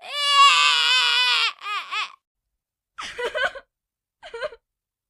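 Baby-like crying: a high-pitched wavering wail of about a second and a half, two short sobs, then after a pause two brief, weaker whimpering sobs.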